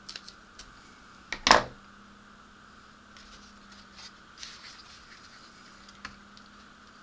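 Plastic model-kit hull parts being handled on a workbench: a few light clicks and taps, with one loud clack about a second and a half in.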